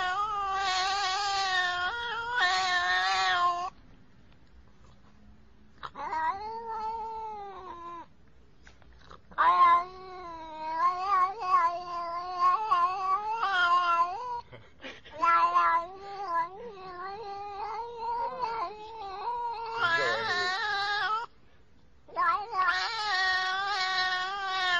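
Domestic cat yowling over and over in long, wavering, drawn-out calls, each a second to several seconds long, with short pauses between them.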